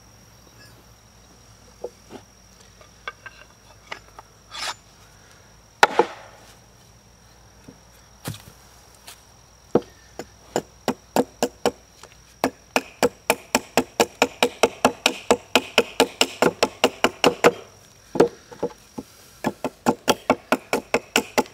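Hand tool chopping a split piece of sassafras held upright on a bench: a few scattered knocks, then from about halfway a fast, even run of light chops, about three a second. A steady high insect buzz underneath.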